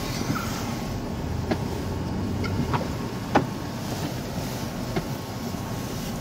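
Engine and tyres of a 4x4 running through deep snow, heard as a steady low rumble inside the cabin. A few sharp knocks cut through it, the loudest about three and a half seconds in.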